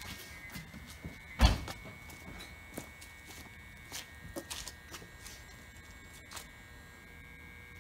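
Faint clicks and knocks, the loudest a single thump about a second and a half in, over a faint steady high tone.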